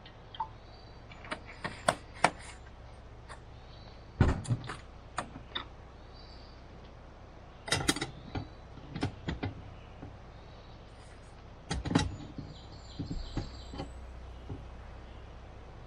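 Scattered clicks, knocks and thuds, several clustered together every few seconds, over a faint steady low hum.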